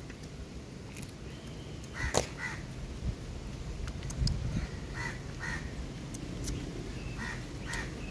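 Birds giving short calls, mostly in quick pairs repeated a few times, over a steady low rumble.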